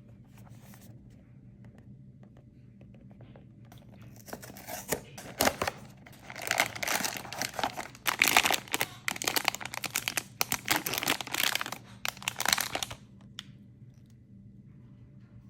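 Toy blind-box packaging being unwrapped: wrapping crinkling and tearing in a dense run of crackly rustles, starting about four seconds in and stopping near the end.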